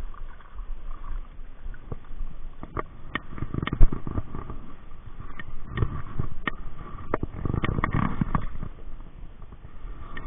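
Close handling noises as a trout is landed and handled on a bank of dry fallen leaves: leaves rustling and crunching, with scattered clicks and knocks and one sharp knock a little under four seconds in.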